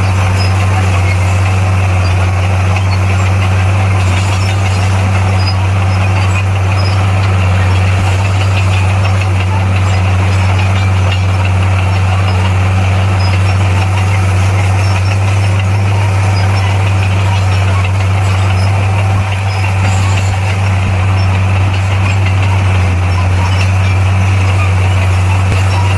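Diesel engine of heavy earthmoving equipment running at a steady speed, a loud constant low drone.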